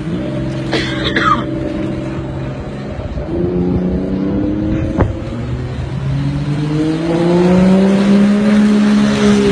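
A motor vehicle's engine running under load, its pitch climbing in two steps and then holding high near the end. There is a brief clatter with a squeal about a second in, and a single sharp knock midway.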